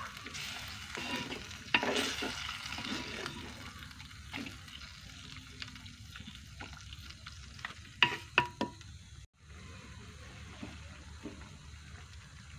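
A wooden spoon stirs chicken curry in a clay pot, scraping through the pieces while the curry sizzles. A few sharp knocks come about eight seconds in, then the cooking goes on more quietly.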